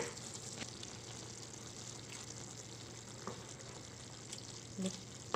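A pan of pork mince and vegetables simmering on a gas burner while a wooden spoon stirs it, knocking lightly against the pan a few times.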